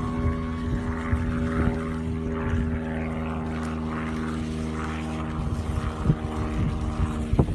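Steady engine drone of an aircraft flying over, holding an even pitch, with faint scattered crackles and a sharp knock near the end.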